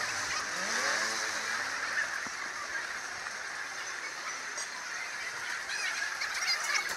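Busy pedestrian street ambience: a steady wash of crowd and city noise, with a few short pitched sounds that rise and fall in the first couple of seconds.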